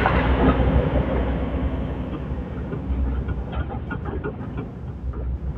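Excavator's diesel engine running with a steady deep rumble that eases off slightly, with scattered light clanks from about halfway through.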